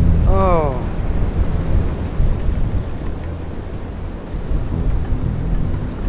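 Strong wind rumbling on the microphone throughout. About half a second in there is a short sound that falls in pitch.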